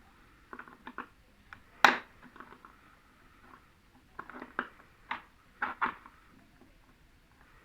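A series of short clicks and knocks from handling and prying apart the plastic and metal parts of an LED TV during disassembly, the sharpest about two seconds in and a quick cluster a few seconds later.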